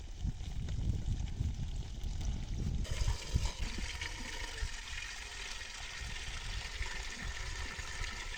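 Water trickling and splashing, coming in suddenly about three seconds in, over a steady low rumble.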